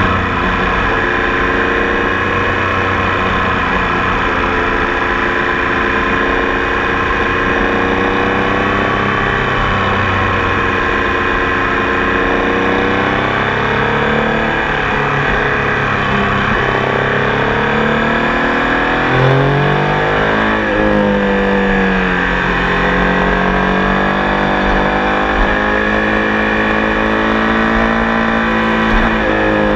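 Triumph Tiger Sport 800 motorcycle's three-cylinder engine running, its pitch drifting slowly up and down with the throttle. About twenty seconds in, the pitch drops sharply and climbs again.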